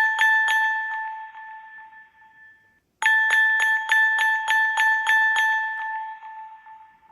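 Samsung Galaxy A17 ringtone: a single high, bell-like chime struck over and over, about three times a second, each strike ringing on. The first run rings away, and after a short break about three seconds in, the run of strikes starts again and fades out near the end.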